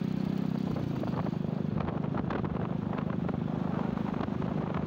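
Motorcycle engine running at a steady cruise, with road and wind noise.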